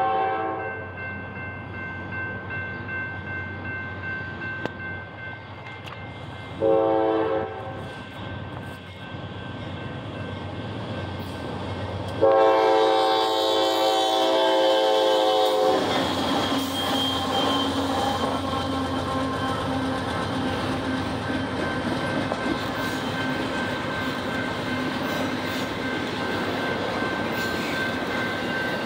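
Norfolk Southern GE AC44C6M diesel locomotives blowing their multi-chime air horn: the tail of one blast, a short blast about 7 seconds in, and a long, loud blast about 12 seconds in as the lead unit reaches the crossing. The locomotives and a doublestack intermodal train then roll past with a steady rumble and wheel clatter.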